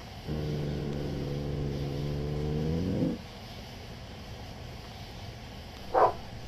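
Dog growling low and steady for about three seconds, then a single bark near the end.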